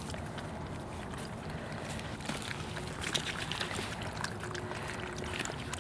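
Airedale terrier puppies drinking from a water bowl, lapping and splashing: a quick, irregular run of small wet clicks, busiest in the middle, over a steady low rumble.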